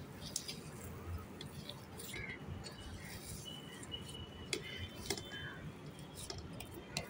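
Hand kneading and pressing soft rice-flour murukku dough in an aluminium bowl: faint squishing with scattered light clicks.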